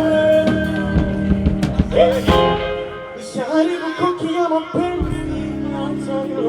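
Live band music with a singer's voice carrying a long, bending sung line over held keyboard and bass chords, heard through a stage sound system during a sound check. The bass drops out for about two seconds midway, then comes back.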